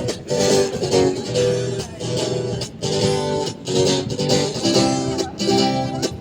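Guitar strumming chords in a steady rhythm, the chords changing about every half second, as the instrumental intro of a song.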